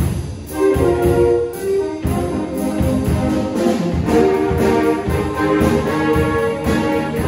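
School jazz band playing: saxophones and trombones holding chords, with tuba and a drum-kit beat underneath.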